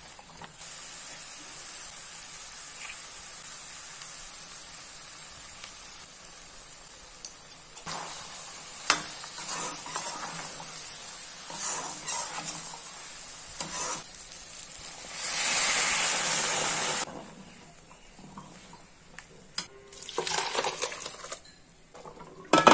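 Masala-coated chicken pieces sizzling in oil in a kadai, with a steel spatula scraping and knocking against the pan as they are stirred. About fifteen seconds in, a much louder hiss lasts about two seconds and stops abruptly.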